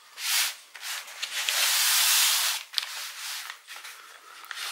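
Blue plastic pry tool (spudger) scraping along the seam between a laptop LCD panel and its thin plastic bezel, breaking the adhesive tape seal. It comes as scratchy strokes: a short one at the start, a longer and louder one in the middle, then fainter ones.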